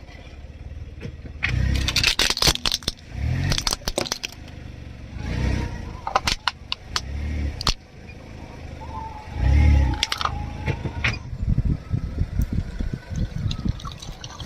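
A car tyre rolling over crunchy objects and crushing them: several bursts of sharp cracking and crunching over a low rumble from the car, then a run of finer crackling near the end.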